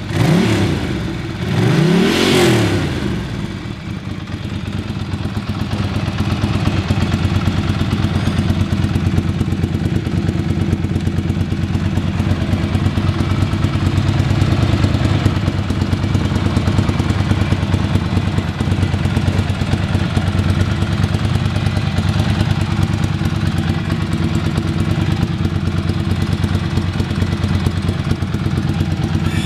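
2002 Ducati Monster 600's air-cooled L-twin engine revved twice in the first few seconds, each rev rising and falling, then settling into a steady idle.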